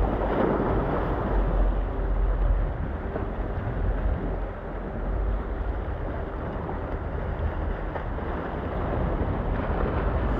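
Wind buffeting the microphone over the wash of sea waves against jetty rocks: a steady low rumble and hiss, loudest in the first second or so.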